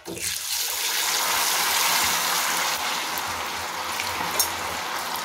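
Marinated chicken 65 pieces dropped into hot oil for deep-frying: the oil bursts into a loud, steady sizzle and bubbling the moment they go in.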